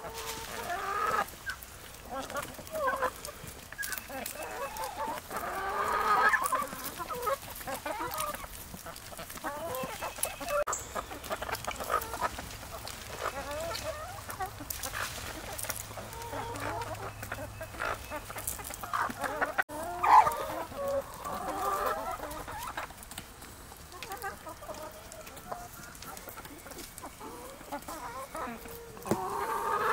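A flock of backyard chickens clucking and calling on and off as they feed together, with louder bursts of calls now and then.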